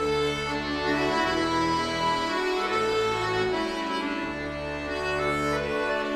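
Background music: an instrumental passage of a song, an accordion playing held chords over changing bass notes.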